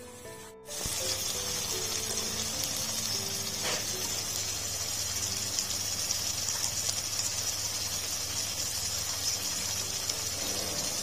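Chicken in spice paste sizzling and simmering in a stainless steel pot: a steady, loud sizzling hiss that starts abruptly just under a second in.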